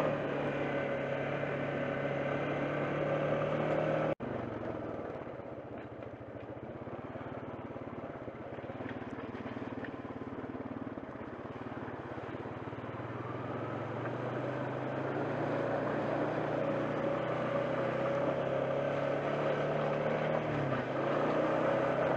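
ATV engine running as it is ridden along a trail. The engine briefly cuts out about four seconds in, runs quieter and lower for a while as the rider eases off, then picks back up.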